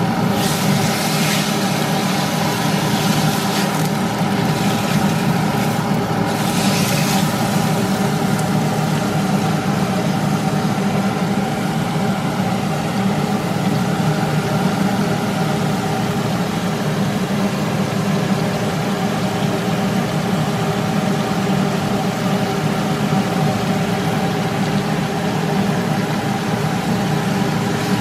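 A steady motor hum with a constant low drone, over pork belly cubes and butter frying in a wok. A wooden spatula stirs them during the first few seconds and again around six to seven seconds in.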